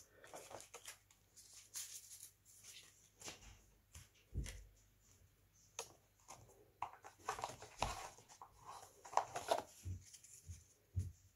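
Faint, irregular handling noises of trading cards: rustles and light taps, with a soft thump about four and a half seconds in and another near eight seconds, as one pile of cards is set aside and the next picked up.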